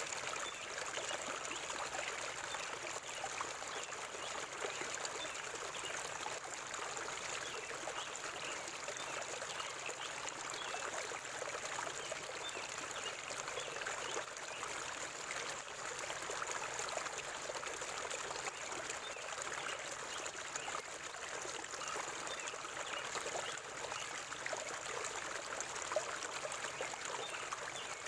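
River water flowing steadily over rocks, a continuous babbling and trickling with no let-up.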